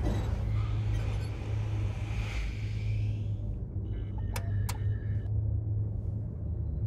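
Steady low hum of a spaceship cockpit's engine ambience, with two sharp clicks and a faint high electronic tone about four to five seconds in.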